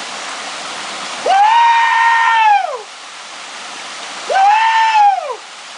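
Waterfall rushing steadily, with a person giving two long, high yells, each rising, held and then falling away, the second shorter than the first.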